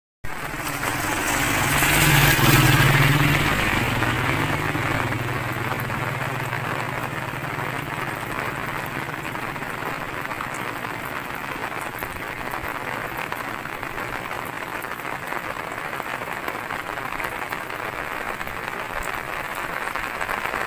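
Steady rain falling. A low hum swells about two seconds in and fades out by about five seconds.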